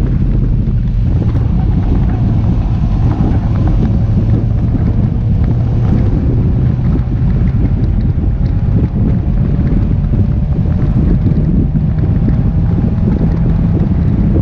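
Wind buffeting the microphone in the open cockpit of a Mazda MX-5 NC at speed, over its four-cylinder engine under load. The engine's pitch climbs through the second half as the car accelerates.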